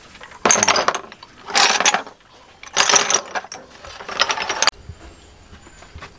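Boiled snail shells clattering and clinking against each other and a ceramic bowl in four short rattling bursts about a second apart, the last cutting off suddenly.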